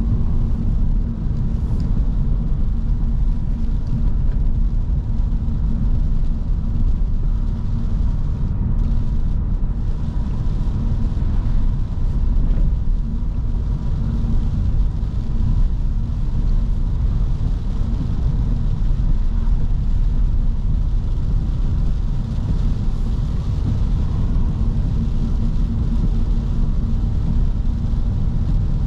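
Steady low drone of a 2009 Audi S5's 4.2-litre V8 heard from inside the cabin while cruising, mixed with tyre and road noise on a wet road.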